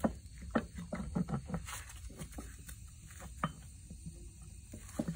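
Brake caliper pistons being wiggled and worked out of their bores by gloved hands: scattered, irregular clicks and knocks of metal on the rusty caliper.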